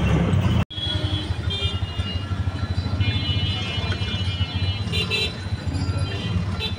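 Auto-rickshaw engine running with a low, pulsing rumble, heard from inside the open cabin in city traffic, with music playing over it.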